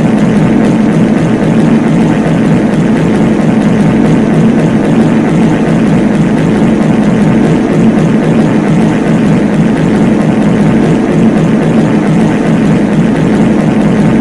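Many reverb fart sound effects layered over one another, loud and continuous, blurring into one steady low drone with no single fart standing out.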